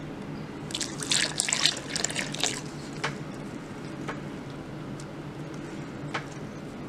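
Milk poured into a stainless-steel mixing bowl of egg-yolk batter, splashing for about two seconds, then stirred by a whisk that gives a few single ticks against the bowl.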